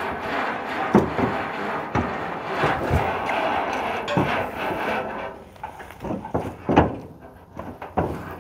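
Horses shifting their hooves on a livestock trailer's plank floor: irregular knocks and thumps. A steady rushing noise sits behind them and drops away about five seconds in.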